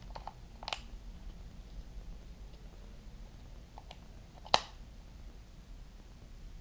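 Small plastic clicks as batteries are pressed into a laser distance measure's battery compartment, then, a few seconds later, one sharp snap as the plastic battery cover clicks shut.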